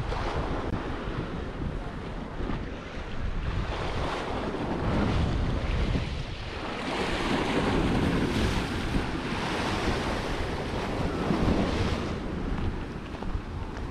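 Sea waves washing onto a small-pebble beach, swelling louder twice in the middle, with wind buffeting the microphone as a steady low rumble.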